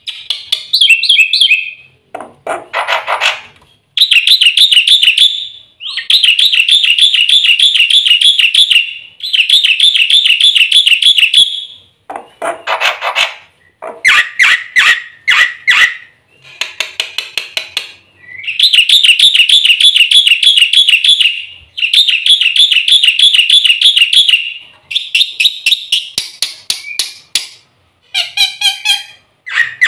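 Black-winged myna (jalak putih) singing a long run of loud phrases, each a second or three long. Most are rapid, chattering trills, and a few lower, harsh calls are mixed in.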